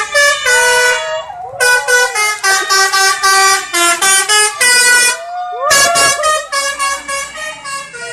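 Indonesian bus 'telolet' horn: a set of musical air horns playing a quick tune of short, stepped notes. The tune breaks off briefly about a second in and again around five seconds in, then goes on more softly near the end.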